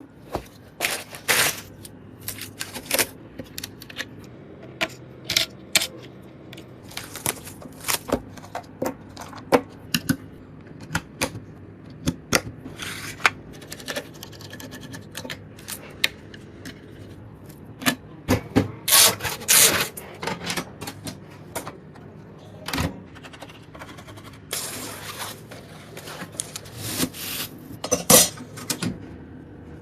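Parts being handled and fitted during a PC build: irregular sharp clicks and knocks of plastic and metal, with short rubbing and scraping sounds.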